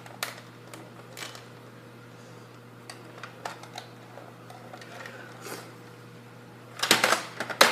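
Sparse clicks and knocks of a Nerf gun's plastic shell and parts being handled and pried open, with a short burst of rapid clattering about seven seconds in. A steady low hum runs underneath.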